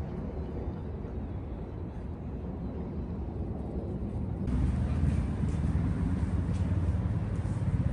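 Outdoor city ambience: a steady low rumble, which steps up louder and brighter about four and a half seconds in.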